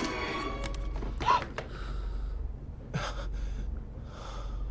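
A person gasping sharply about a second in, followed by fainter breaths.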